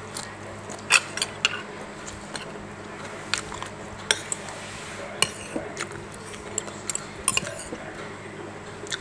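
Metal spoon and fork clinking and scraping against a plate while scooping rice, a string of sharp, irregular clinks.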